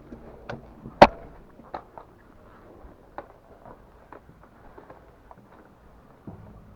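A loud sharp crack about a second in, followed by scattered fainter clicks and snaps at irregular intervals.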